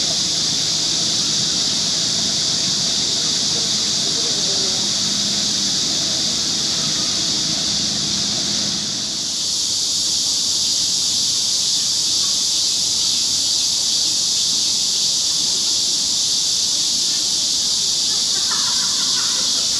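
Loud chorus of cicadas: a dense, steady, high-pitched buzz with no break.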